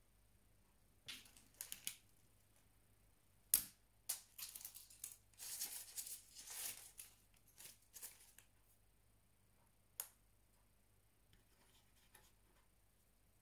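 Small mechanical sounds of a mini toothpick gun being handled and fired: a few faint clicks, then a sharp snap, a few seconds of rustling and clicking, and another sharp snap.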